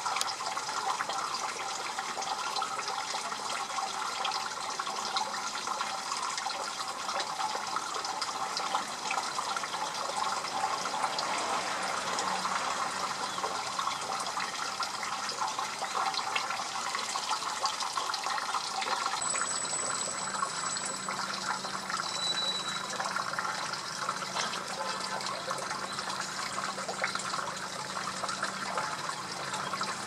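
Steady rush of running water, like a stream or weir, with a thin high whistle about two-thirds of the way through and a short high note soon after.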